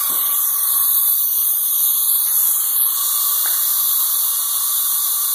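Compressed air hissing steadily as it flows from the compressor hose into the pneumatic PVC cannon's pressure chamber, recharging it toward 110 psi, with a faint steady whistle in the hiss.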